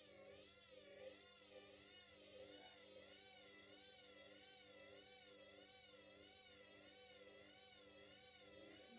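Candy washing machine motor whining steadily while the drum turns with an unbalanced load in it, its pitch rising and falling about twice a second over a low steady hum.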